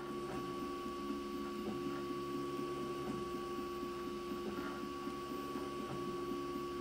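Prusa i3 3D printer printing: its stepper motors whine in short stepped tones that change pitch every fraction of a second as the print head moves, over a steady hum.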